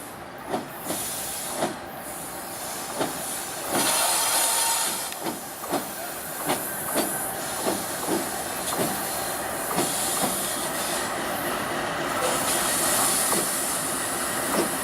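Cars of a Norfolk Southern freight train rolling past, their wheels clacking over rail joints about once or twice a second over a steady rushing hiss.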